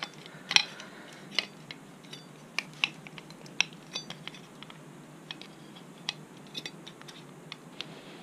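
Irregular light clicks and clinks from the plates of a motorcycle tail tidy bracket being handled and fitted together while a rubber bung is pushed through their holes. The sharpest click comes about half a second in.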